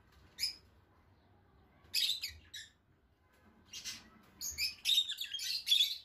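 Lovebird nestling giving harsh, high begging chirps: a few scattered single calls, then a quick run of them over the last second and a half.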